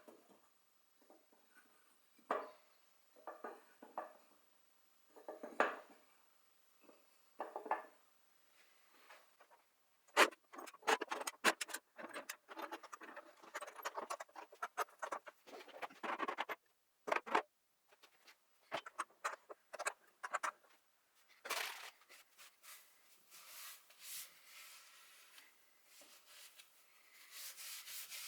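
Intermittent scratching and rubbing. Separate short scrapes come over the first ten seconds, then a denser, busier run of scratches follows.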